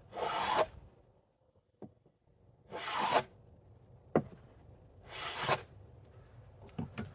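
Hand plane taking three short strokes along the edge of a wooden board, each a hissing shave about half a second long and about two and a half seconds apart, with light knocks of the plane between strokes. The strokes are cutting down a high spot in the middle of the edge to bring it straight and square.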